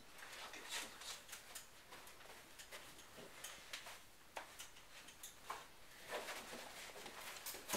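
Faint scattered rustling and light clicks and knocks of people handling and moving things in a small room.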